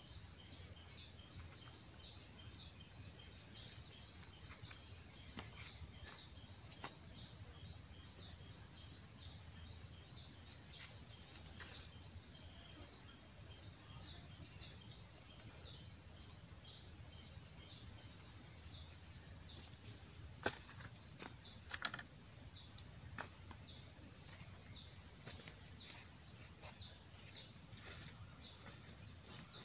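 Steady high-pitched chorus of insects, with a faint regular pulse, over a low background hum. A few faint clicks are scattered through it, and a couple of sharper clicks come about two-thirds of the way in.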